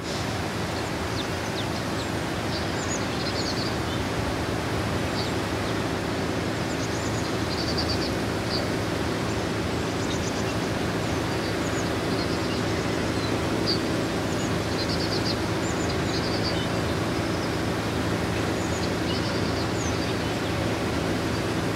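Steady low engine drone under an even hiss, with small birds chirping and trilling at intervals.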